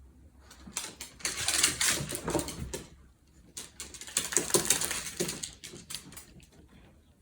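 Dogs' claws clicking and tapping on a hard floor as they walk about, in two busy flurries of quick clicks with a lull between.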